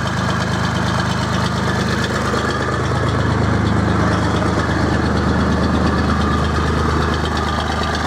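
Aveling Barford GRT road roller's diesel engine idling steadily while its gearbox-powered water pump feeds the roll sprinklers.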